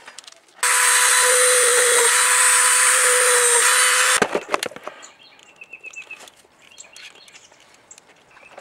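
A power tool's motor runs for about three and a half seconds with a steady whine, starting and stopping abruptly. Scattered clicks and knocks of handling follow.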